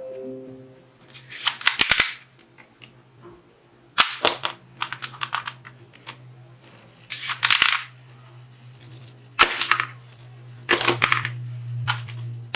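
Plastic toy revolver being worked by hand: sharp mechanical clicks come in quick clusters about every two to three seconds, over a steady low hum.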